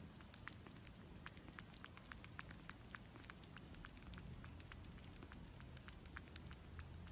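A kitten suckling milk from a feeding syringe: faint, quick clicks and smacks of its mouth at the syringe tip, a few a second and irregular.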